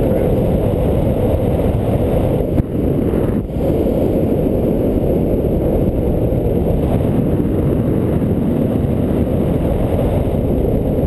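Wind rushing over the camera's microphone in flight: a loud, steady low rumble with two brief dips about two and a half and three and a half seconds in.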